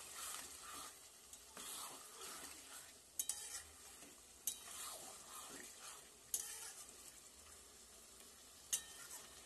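Metal spatula stirring spiced mutton pieces in a metal kadai as they fry down in their masala, with a faint sizzle. There are soft swishes of stirring and a few sharp clinks of the spatula against the pan.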